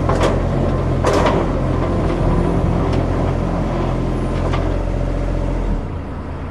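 Compact loader's engine running steadily while its plow is driven over pavement on a new UHMW polyethylene cutting edge, with a few sharp knocks. The engine note drops near the end.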